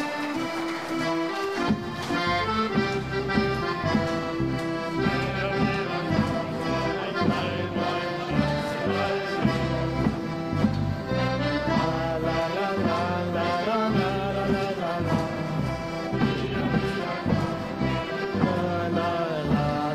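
Instrumental accordion music with a steady beat in the bass, without singing.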